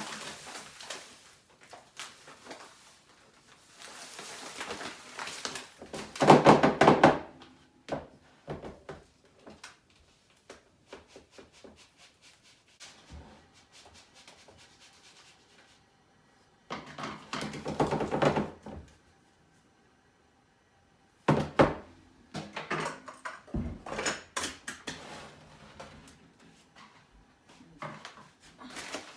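Granulated sugar poured into a kitchen canister in two rushing pours, around six seconds in and again around seventeen seconds in. Between the pours come scattered knocks and clunks of containers being handled.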